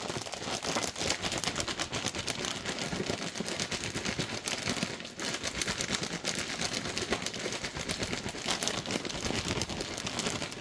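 Plastic mushroom spawn bag crinkling and rustling continuously as it is worked by hand to break up and mix popcorn grain spawn through the sawdust, with rapid crackling throughout and a brief lull about halfway through.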